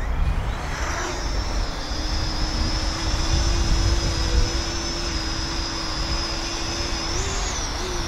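Parrot Anafi quadcopter taking off on its low-noise propellers: the rotors spin up about a second in to a steady high whine, rising briefly in pitch near the end. Low wind rumble on the microphone underneath.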